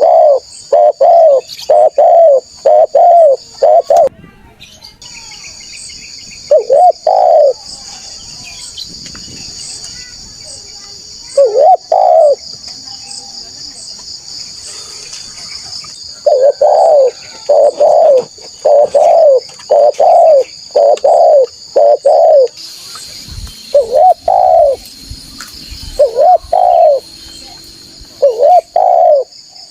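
Spotted dove cooing loudly in repeated runs of deep, rounded notes, some runs of five or six, others of one or two, with short pauses between. A steady high-pitched insect drone runs underneath.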